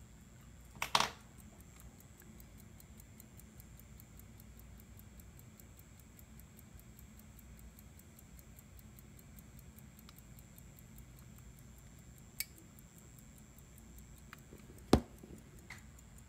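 Hamilton 975 pocket watch ticking steadily, about five ticks a second, interrupted by handling knocks: a cluster about a second in and a single sharp knock near the end, the loudest sound, as the watch is set down on a plastic lid.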